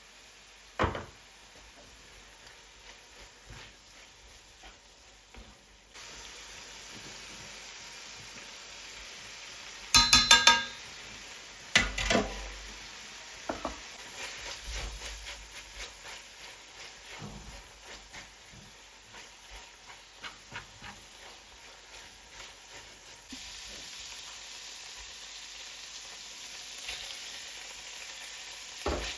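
Food sizzling in a pan while it is stirred with a utensil, with small scraping clicks. A loud, ringing clatter of kitchenware about ten seconds in, and a second knock shortly after.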